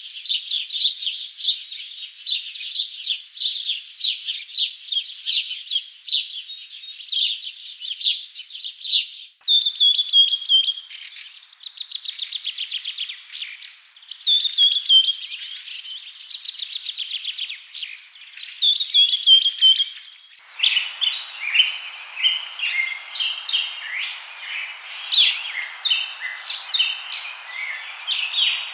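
Songbirds chirping and trilling in quick repeated phrases. The birdsong changes abruptly about nine seconds in and again about twenty seconds in, and the last part has a faint hiss underneath.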